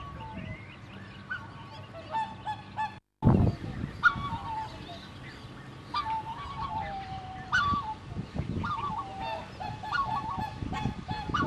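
A chorus of captive waterfowl, geese, ducks and swans, calling with many short, repeated honks. About three seconds in the sound cuts out briefly, followed by a loud low thump.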